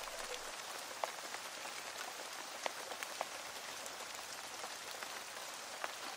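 Light rain falling steadily on pavement: a soft, even hiss with a few single drops ticking now and then.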